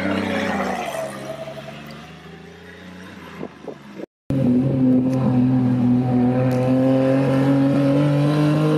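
Drift cars' engines: one car's engine note drops in pitch and fades as it pulls away. After a brief cut-out in the sound about four seconds in, a drift Corvette's engine runs loud and steady, its pitch slowly rising as it comes closer.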